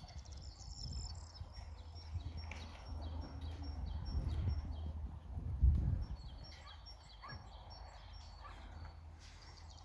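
A flock of racing pigeons cooing on a loft's landing board, with short high chirps scattered through. Wind rumbles on the microphone, with a gust about six seconds in.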